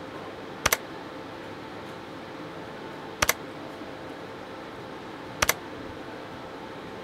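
Steady machine hum with three sharp double clicks, each a pair of quick taps, spaced two to three seconds apart.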